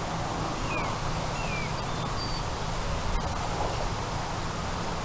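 Steady wind noise on the microphone, with a low rumble, and a few short falling bird chirps in the first couple of seconds.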